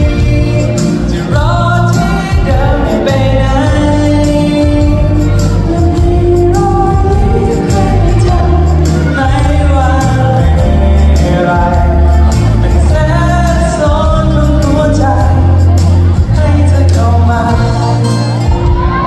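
A male singer singing a pop song live into a handheld microphone over a backing track with a strong bass line.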